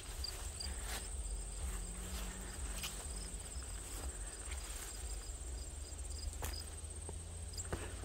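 Insects trilling steadily and high-pitched in a summer grass field, with a second insect giving short quick chirps that stop about two-thirds of the way through. Footsteps on grass sound as scattered soft clicks, over a low rumble.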